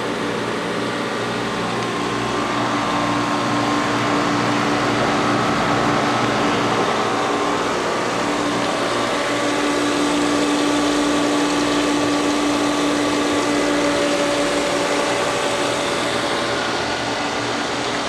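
Inground pool pump and filter system running steadily: a constant electric motor hum with water rushing through the plumbing, and a few faint steady tones that come and go.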